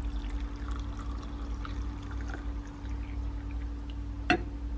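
Hot mulled wine poured from a white enamel jug into a ceramic cup, a steady trickling pour. A single sharp knock near the end.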